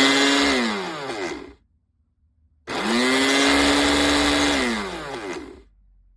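Small 400 W personal blender's motor run in short pulses: a run already going at the start cuts out and spins down by about a second and a half in, then a second run starts near the three-second mark, holds a steady whine, and spins down again near the end.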